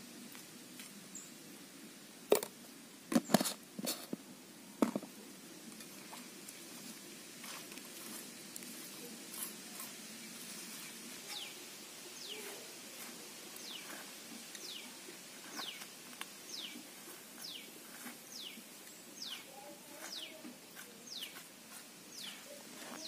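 A few sharp metallic knocks about two to five seconds in, then a bird repeating a thin, quickly falling call about once a second.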